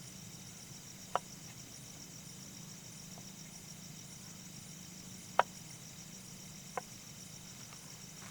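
Crickets chirping steadily at night, with a few sharp isolated clicks about a second, five seconds and nearly seven seconds in.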